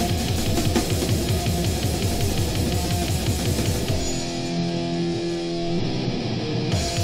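Grindcore band playing live: guitar and fast drums. About four seconds in, the drums drop out and a guitar holds a sustained chord, then the full band comes back in near the end.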